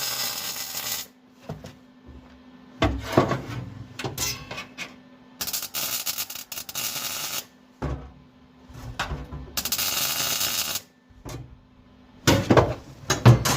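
Wire-feed welder laying short tack welds on a steel floor patch: three bursts of hissing arc, each a second or two long, with knocks and taps on the sheet metal between them and a cluster of knocks near the end.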